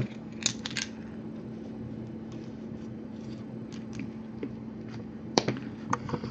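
A felt-tip marker drawn across a shrink-wrapped card box to mark it, among small clicks and taps of handling, the sharpest about five seconds in, over a steady low hum.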